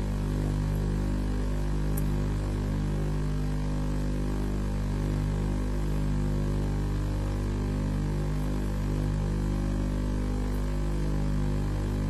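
A steady electrical-sounding hum with many overtones, swelling slightly every second or two; no bird calls stand out.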